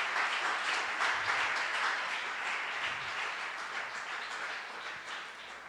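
Congregation applauding, the clapping dying down over the last couple of seconds.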